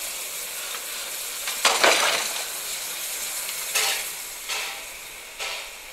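Small steam tank locomotive moving off: a steady hiss of steam, with an exhaust chuff about two seconds in, the loudest, then three more chuffs less than a second apart.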